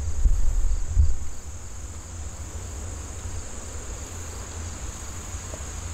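Steady high-pitched chorus of insects such as crickets, with a low rumble underneath that is loudest in the first second and a half and then dies down.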